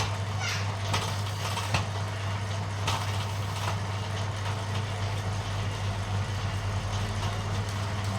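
Bamboo thinning machine running with a steady low hum, with a few sharp knocks and rattles in the first few seconds as bamboo passes through it.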